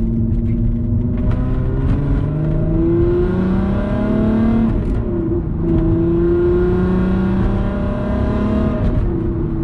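2004 VW Golf R32's 3.2-litre VR6 engine pulling under acceleration, heard from inside the cabin. The pitch climbs, breaks at a gear change about five seconds in, then climbs again.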